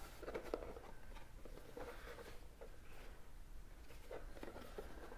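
Soft rustling and light scattered taps and clicks of a large cardboard gift box being handled and opened.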